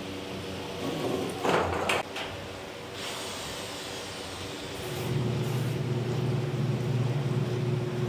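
Water pouring from a hose into a steel washing-machine tub, with a short loud clatter about a second and a half in. About five seconds in, the machine's electric motor is switched on and runs with a steady low hum as the pulsator churns the water.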